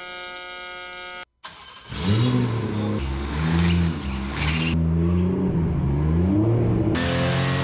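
A TIG welding arc buzzes steadily for about a second and cuts off. After a short pause, the 2020 Toyota Supra's factory B58 turbocharged inline-six revs up and down again and again, with its pitch jumping abruptly a few times.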